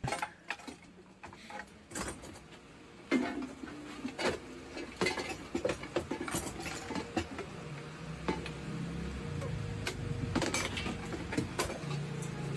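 Metal pots, pressure cookers and kettles being handled, knocking and clinking against each other and the counter in scattered strikes.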